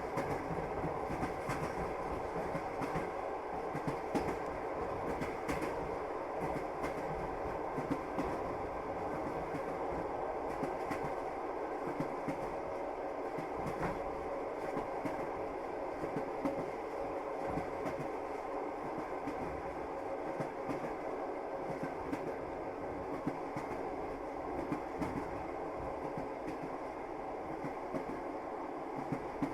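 Passenger train running along the track, heard from inside the carriage: a steady rumble with frequent clacks of the wheels over the rails.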